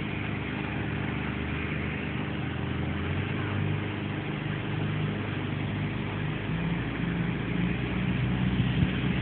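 A vehicle engine running steadily at low revs, its pitch shifting slightly about two thirds of the way through.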